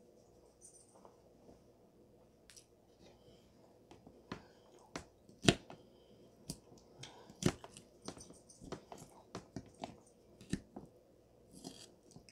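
Faint close-miked chewing, then from about four seconds in a fork clicking and scraping on a plate as it cuts into a toasted ham sandwich, with two louder clinks.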